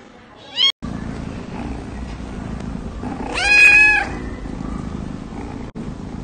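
A cat gives a short meow near the start. About three seconds in, a kitten lets out a loud, drawn-out meow, the loudest sound. A steady low rumble runs underneath.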